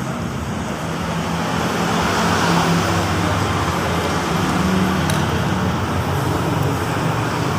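Steady rumble of road traffic, with a low engine hum running through it.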